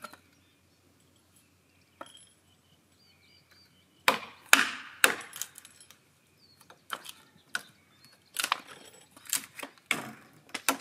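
Hammer blows driving a chisel into a wooden post to chop out a mortise. After a pause, three hard strikes come about four seconds in, followed by a run of lighter, quicker taps.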